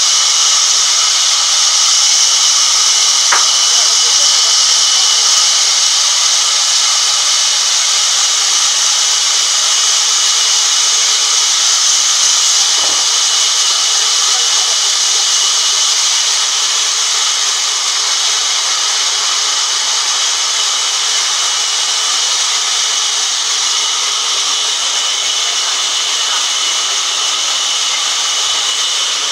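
Large vertical band saw ripping a log lengthwise: a loud, steady high hiss of the blade cutting through the wood, with a constant high whine from the running saw.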